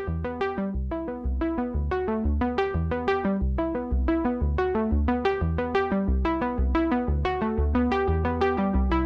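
Background music: quick plucked synthesizer notes over a steady bass beat.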